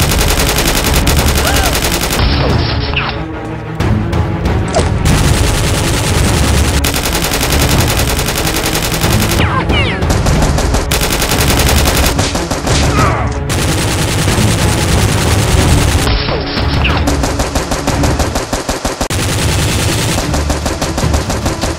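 Rapid automatic-gunfire sound effects in long, dense volleys, dubbed over toy blasters being fired, with action music beneath.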